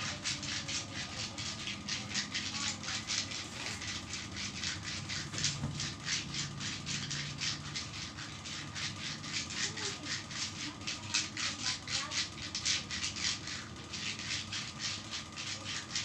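Hands rubbing briskly over bare skin in massage strokes: a dry rasping swish repeated in a quick, even rhythm.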